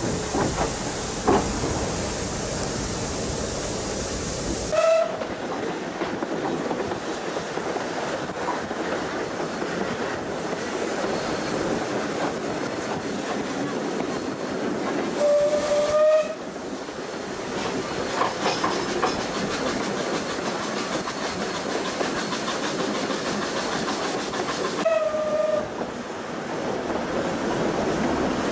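Isle of Man Railway narrow-gauge steam train running along the rails, heard on board as a steady rolling clatter. The steam locomotive's whistle sounds three short blasts, about ten seconds apart.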